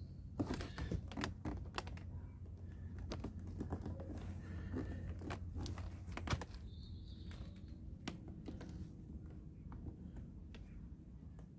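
Irregular light clicks and taps of fingers pressing a silicone light-diffuser insert into the plastic door-card trim of a Mercedes C-Class, thickest in the first half, over a faint steady low hum.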